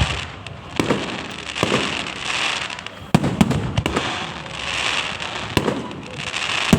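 Fireworks going off: sharp bangs of bursting shells, one every second or two, with crackling hiss between them.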